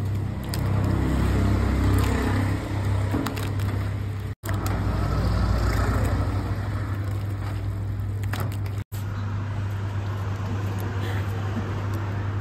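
A steady low machine hum under background noise, cutting out abruptly twice for an instant.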